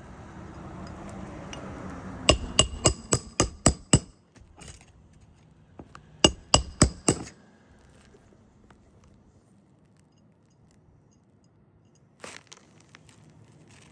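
A hammer driving roofing nails during a three-tab asphalt shingle repair: two quick runs of ringing metallic blows, about seven in the first and five in the second, a couple of seconds apart.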